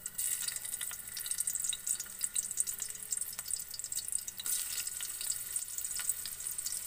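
Ginger pieces sizzling in hot oil in a steel wok, a steady hiss with many small crackles: the first stage of sautéing, browning the ginger before the tomatoes go in.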